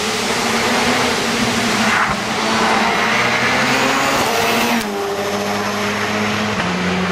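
Race car engine under hard acceleration up a hill-climb course, loud throughout, with the engine pitch changing about two seconds in and dropping near five seconds as the driver shifts gear.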